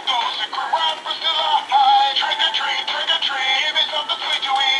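A pop-style song with a singing voice playing from a dancing animatronic Halloween skeleton's built-in speaker, thin with no bass.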